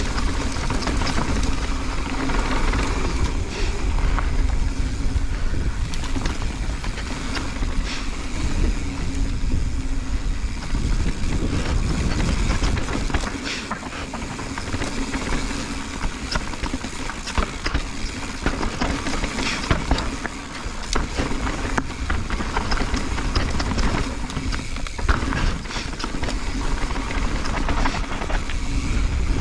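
Mountain bike riding fast down a dirt and gravel trail: tyres rolling over loose dirt and wind buffeting the camera's microphone, with the bike rattling and knocking over bumps.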